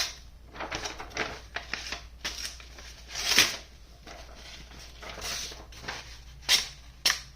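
Sencut Serene folding knife blade slicing through paper in a series of short rustling strokes, about six of them, with two sharp clicks near the end. The blade cuts cleanly, a sign that it is sharp out of the box.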